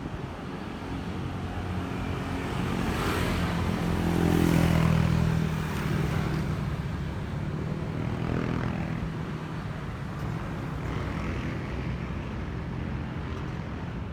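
Engines of passing vehicles over a steady low drone. One passes loudest about four to five seconds in, another about eight seconds in, each swelling and fading.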